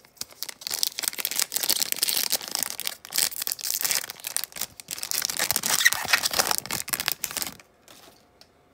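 A Panini Prizm football card pack's wrapper being torn open and crinkled by hand, a dense crackling rustle that stops abruptly about a second before the end.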